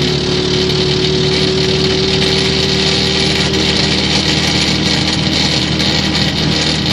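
Small single-cylinder four-stroke walk-behind tractor engine (6.5 hp) running steadily in a VAZ 2109 car. A higher whine over it fades out about four seconds in.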